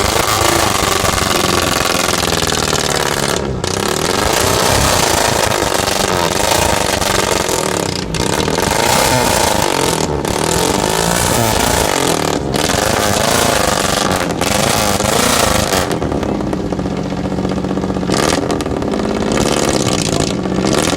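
Off-road vehicle engine revving hard and continuously, its pitch rising and falling, with brief dips every few seconds as the throttle is lifted.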